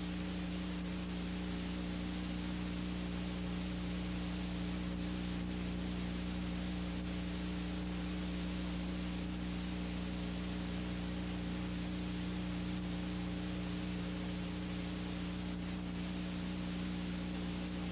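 Steady hiss with a constant low electrical hum and nothing else: the noise floor of an old black-and-white film transfer with no sound on it.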